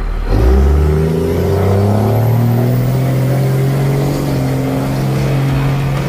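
Pickup truck engine accelerating, its pitch climbing gradually and then holding steady, with a faint high whistle rising about two seconds in.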